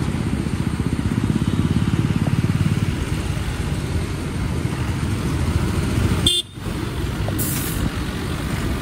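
Yamaha MT-15 motorcycle's single-cylinder engine running while riding, with road noise; the sound drops out briefly about six and a half seconds in.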